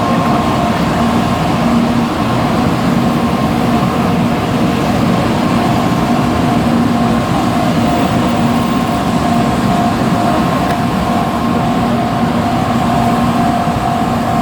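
Steady vehicle running noise with a few steady humming tones, unchanging in loudness throughout.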